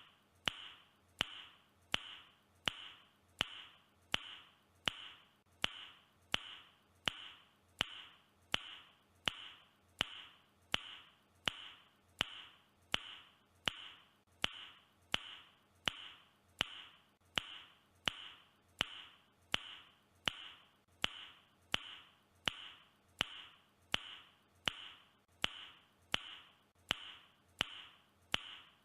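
A man's mouth click, repeated at an even rate of about three clicks every two seconds, each click followed by a short fading tail.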